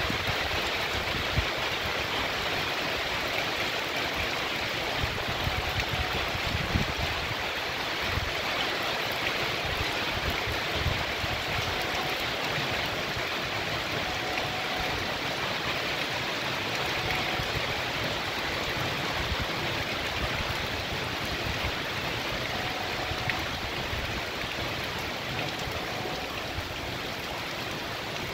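Heavy rain falling on a paved street and the leaves of a tree: a steady, even hiss of downpour.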